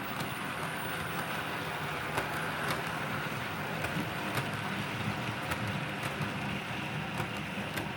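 OO gauge model train running on the layout's track: a steady hum of motor and wheels, with scattered sharp clicks as the wheels pass over rail joints.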